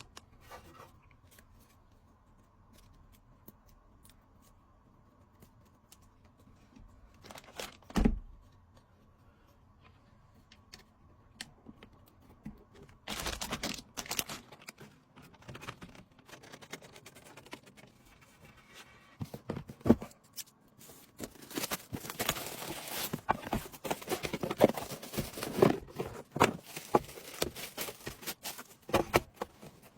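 Hands handling computer parts and their packaging: scattered clicks and taps, a thump about eight seconds in, then long stretches of crinkling and rustling like plastic wrap or bags being handled.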